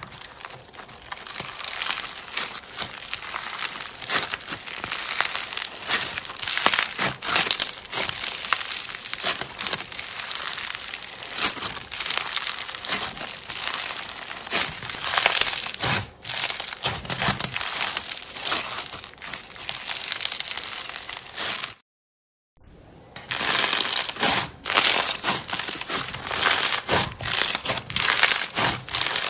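Slime being squeezed and worked by hand, with dense crackling and popping. It breaks off for about half a second about three-quarters of the way through.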